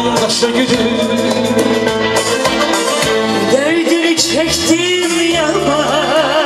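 Live band music with synthesizer keyboard and guitar accompanying a singer: a man's voice at first, then a woman singing ornamented, wavering lines from about halfway through.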